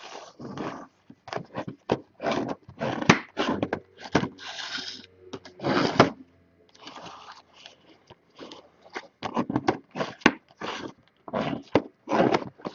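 Plastic wrapping crinkling as it is pulled off sealed cardboard trading-card boxes, with the boxes scraping and knocking on a wooden table in an irregular run of short rustles.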